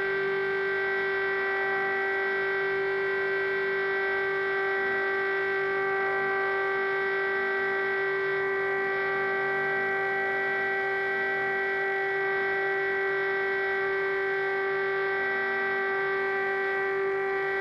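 Air-raid siren sounding the all-clear signal: one long tone held at a constant pitch, with no rise or fall, meaning the air raid is over.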